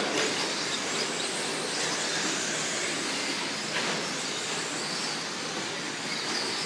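Several radio-controlled short course trucks racing on a dirt track: a steady blend of motor whine and tyre noise.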